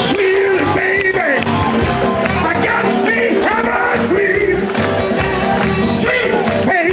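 Live band music with singing, played loud through the stage loudspeakers.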